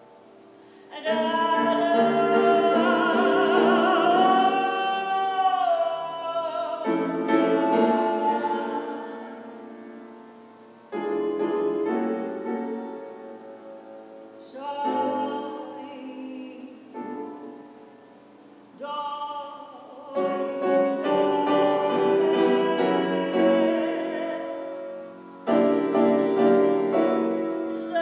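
A woman singing improvised phrases with grand piano accompaniment, the phrases a few seconds long with short breaks between them, and a wavering held note a few seconds in.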